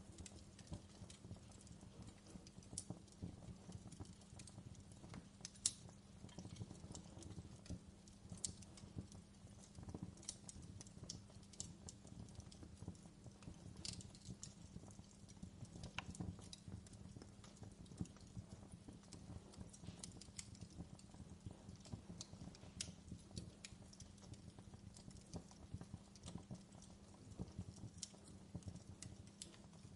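Faint fireplace crackling: irregular small pops and snaps over a low steady hum.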